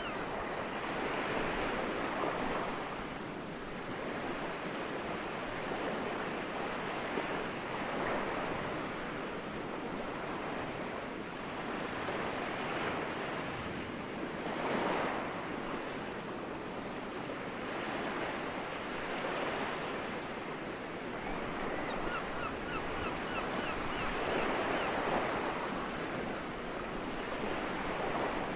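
Soft sea waves washing ashore, breaking and receding in swells that rise and fade every few seconds.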